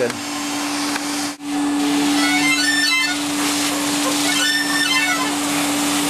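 A vacuum cleaner's nozzle sucking air through a mouth organ's reed holes, so the suction sounds the reeds: a steady low note over rushing air, with higher reedy notes wavering in twice. The suction breaks off for a moment about a second and a half in.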